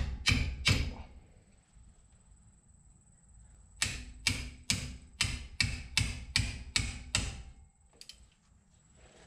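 Hammer blows on a wrench fitted to a seized, torch-heated axle backing-plate nut, metal striking metal to shock the nut loose: three quick blows, then after a pause about ten more in a steady run of roughly three a second.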